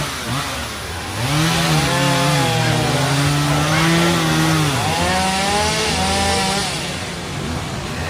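A small engine revving up and down twice, its pitch rising and dropping, over a steady hiss of heavy rain and wind.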